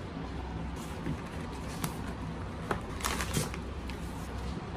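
A few light clicks and rustles of objects being handled, over a steady low hum.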